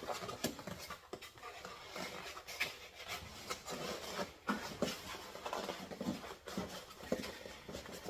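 Rustling and light, irregular knocks and clicks of parts being taken out of their packaging: a KitchenAid meat grinder attachment being unpacked.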